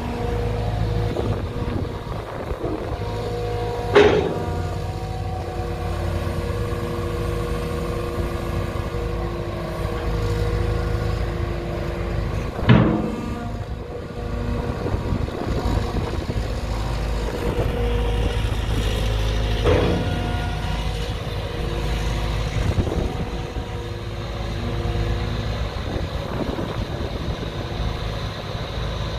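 Diesel engine of a JCB JS200W wheeled excavator running steadily, with three sharp metallic knocks about 4, 13 and 20 seconds in, the middle one the loudest.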